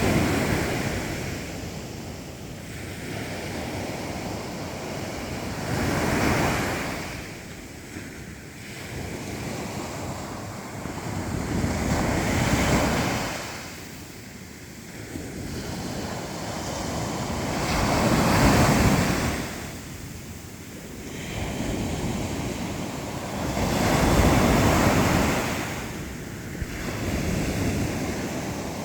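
Black Sea waves breaking, a surge of surf swelling and falling away about every six seconds.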